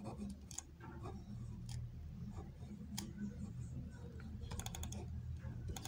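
Blue ballpoint pen writing on a workbook page: faint scratching and light ticks of the pen tip, with a quick run of ticks near the end.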